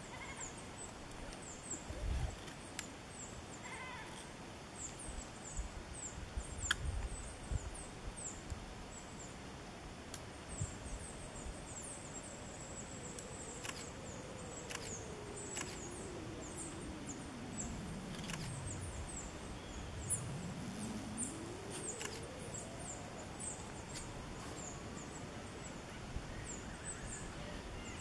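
Thin, high chirps from small birds in the trees, coming in quick irregular runs, with a faint low hum in the middle that sinks in pitch and then climbs again.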